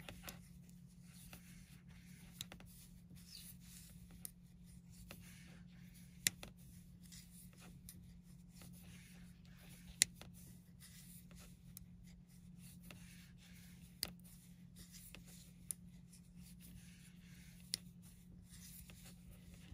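Metal circular knitting needles clicking now and then as purl stitches are worked in bulky cotton yarn, with soft rubbing of yarn and fingers between the scattered clicks. A faint steady low hum runs underneath.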